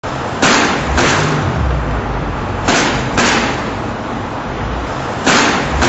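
Vehicles driving over a failing self-centering bar and cover plate seismic expansion joint. Each axle hitting the plates gives a loud bang, so the bangs come in pairs about half a second apart, three pairs in all, over a steady rumble of traffic.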